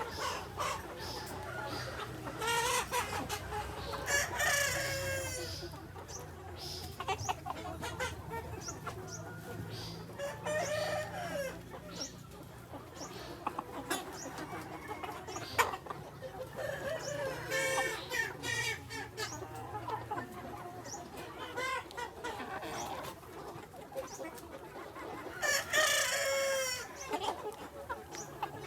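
Free-range chickens: a rooster crows about four times, roughly seven seconds apart, with hens clucking in between.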